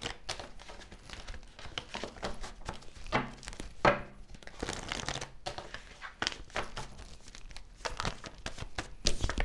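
A deck of tarot cards being shuffled by hand: fast runs of riffling and flicking card edges, with louder flurries about four seconds in and just before the end.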